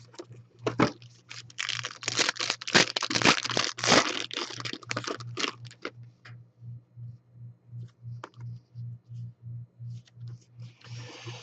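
A trading card box and its foil pack wrapper being torn open: dense tearing and crinkling for about five seconds, then a few faint handling clicks and a soft rustle near the end.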